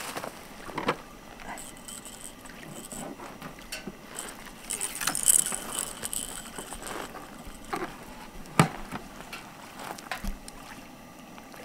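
Scattered clicks and scrapes of a knife, pliers and a small fish being handled on a plastic cooler lid, with one sharp knock about eight and a half seconds in.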